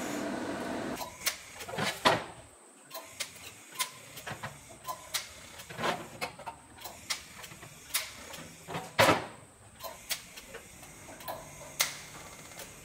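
TIG welding torch tack-welding thin 304 stainless steel sheet: a steady arc buzz for about the first second, then a string of short, sharp clicks and snaps at uneven intervals as tacks are struck one after another.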